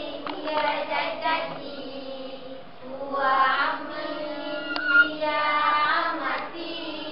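A class of young children singing an Arabic nasheed along with a recording and their female teacher, the recorded music playing underneath. A short sharp click cuts in about five seconds in.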